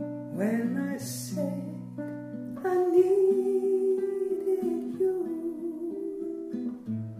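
Instrumental intro of a lounge-style song: guitar chords with a melody line, then a long wavering held note from about three seconds in.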